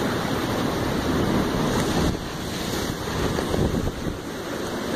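Sea surf surging and churning through gaps in the coastal rocks, a steady rushing noise that eases slightly about two seconds in.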